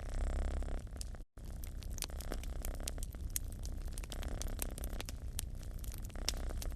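A cat purring in a steady low rumble, with a wood fire crackling in small irregular pops. The sound cuts out completely for a split second just over a second in.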